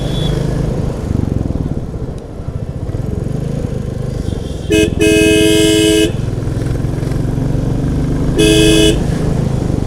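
Single-cylinder Royal Enfield Bullet motorcycle engine running steadily while ridden in traffic. A vehicle horn sounds about five seconds in, a quick toot followed by a blast of about a second, and again more briefly near the end; the horn is the loudest sound.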